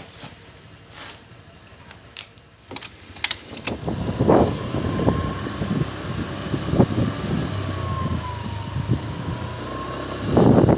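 A few clicks and a light jingle like keys, then a motorcycle engine running as the bike rides along a street, with a faint steady whine over it. Near the end, wind rushes loudly over the microphone as the bike picks up speed.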